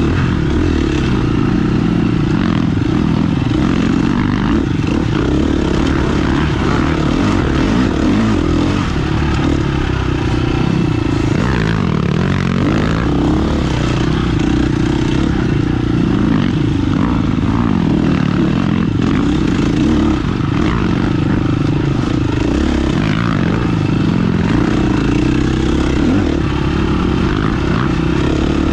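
Off-road motorcycle engine running steadily under power, a continuous loud drone with no pauses.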